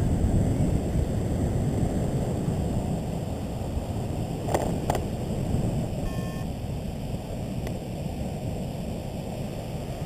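Wind rushing over the camera microphone from the airflow of paraglider flight, a steady low rush that eases slightly. Two short clicks come about halfway through, and a brief beep just after.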